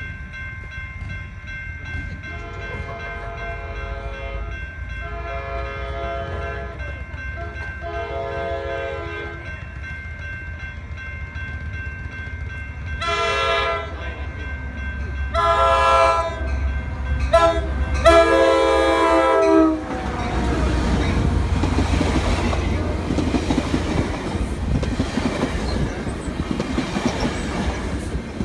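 Coaster commuter train sounding its horn as it approaches: three long blasts, then the long-long-short-long grade-crossing signal, louder as it nears. The train then passes close by with steady wheel and rail noise.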